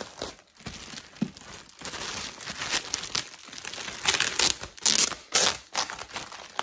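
Clear plastic bag crinkling and rustling in irregular bursts as hands pull it off a cardboard gift box, with the loudest crackles about four to five and a half seconds in.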